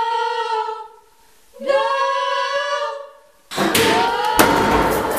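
A small group of female voices singing a capella in harmony: two held chords, each sliding up into its note, with a gap between them. About three and a half seconds in, a sudden loud noisy burst with sharp knocks cuts in over everything.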